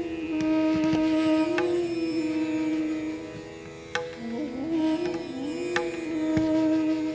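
Bansuri (bamboo flute) playing long held notes of an Indian classical melody, with a wavering slide down and back up about four seconds in, over a steady drone. A few sharp percussive strokes fall between the notes.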